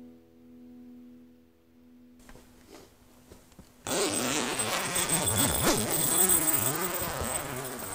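Canvas tent's door zipper being pulled open, with the stiff canvas rustling and flapping, loud and sudden from about four seconds in. Before it, the tail of a guitar music track fades out.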